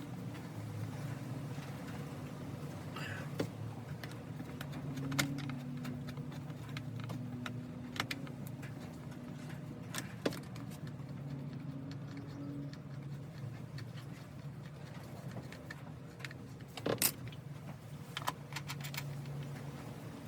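Scattered light metallic clicks and clinks of hand tools and parts during chainsaw reassembly, with a louder clatter near the end, over a steady low hum.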